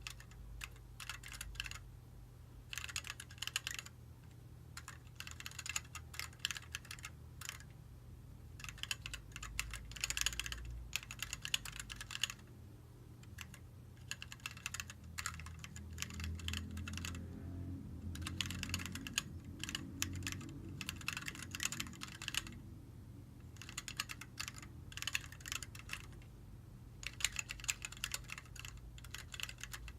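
Planck 40% ortholinear mechanical keyboard with Gateron Red linear switches being typed on fast, in quick runs of keystrokes broken by short pauses.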